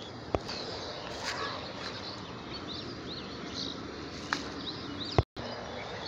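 Small birds chirping in short high calls over a steady outdoor hiss, with a sharp click early on and a louder click near the end followed by a moment of silence.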